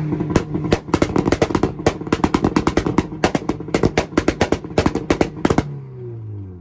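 Car engine held on a two-step launch limiter at steady high revs, firing a rapid, uneven string of sharp exhaust pops and cracks. About five and a half seconds in, the pops stop and the revs fall away.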